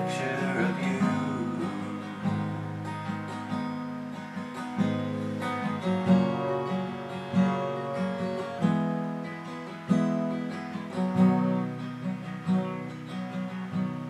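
Steel-string Epiphone acoustic guitar strummed in a steady rhythm, its chords ringing on between strokes, with no singing over it.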